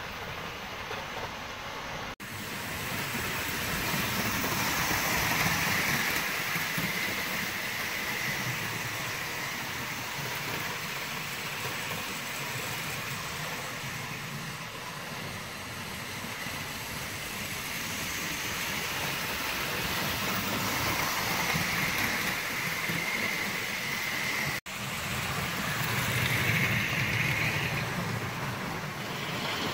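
OO gauge model trains running on sectional track: a steady whirr of small electric motors and wheels rolling on rail, growing louder twice as a train comes round close by. Two very brief dropouts break the sound, one about two seconds in and one near the end.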